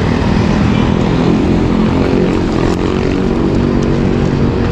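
Steady wind rush on the microphone of a moving road bike, mixed with the engine noise of motor traffic close by.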